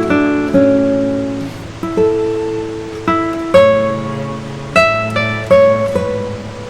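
Background music on acoustic guitar: plucked and strummed chords, each struck note ringing out and fading, a new chord every half second to a second.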